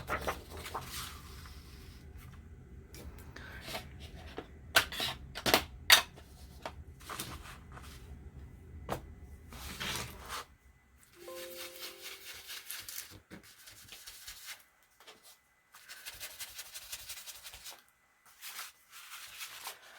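Paper being rubbed and rustled while it is worked by hand, with scattered taps and clicks. A low steady hum runs under the first half and stops about halfway through.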